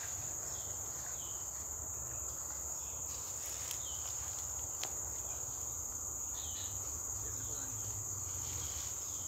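Steady high-pitched drone of insects, one unbroken tone, with a few faint short chirps over it.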